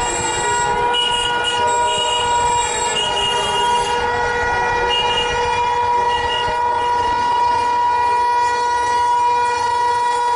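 Electric locomotive's horn held in one long, steady blast as the train approaches, over the rumble of the train on the track.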